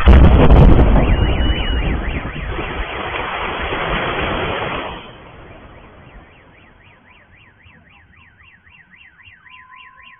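A large explosion goes off at the start, picked up by a street security camera: a sudden blast and heavy rumble that holds for about five seconds and then dies away. Car alarms set off by the blast wail with a rising and falling tone through the rest, joined near the end by a second alarm's steady tone.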